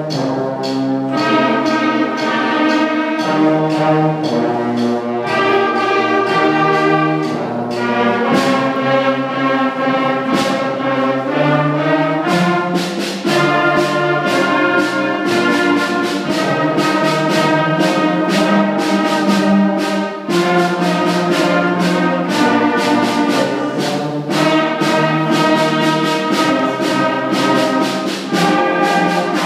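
Sixth-grade school concert band of flutes, clarinets and brass playing a piece under a conductor, with sustained chords changing every second or so and no break.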